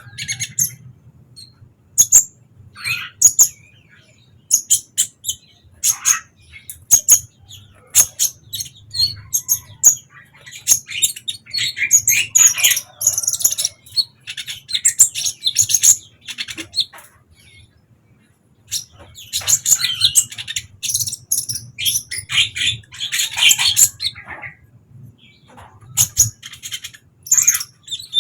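Kolibri ninja (a sunbird) singing: fast, very high-pitched chirps and twittering trills in bursts separated by short pauses, over a faint low hum.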